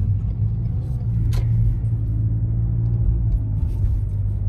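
Steady low rumble of a moving car's road and engine noise heard from inside the cabin, with one sharp click about a second and a half in.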